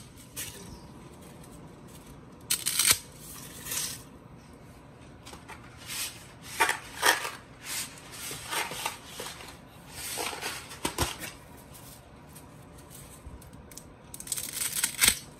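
Handfuls of dry thin spaghetti being snapped into thirds by hand, crackling in short clusters of snaps every few seconds.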